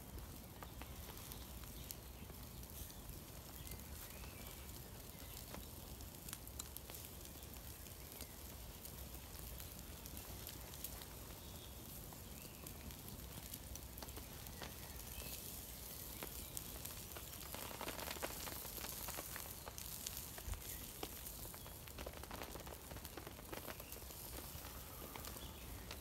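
Wood campfire crackling with scattered small pops under a faint, steady sizzle from burgers cooking on the hot ashes. The hiss swells for a couple of seconds about two-thirds of the way through.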